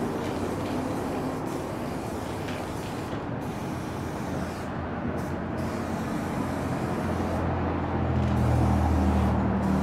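Aerosol spray paint can hissing in long bursts with short breaks between them, over street traffic noise; a vehicle engine's low hum grows louder from about seven seconds in.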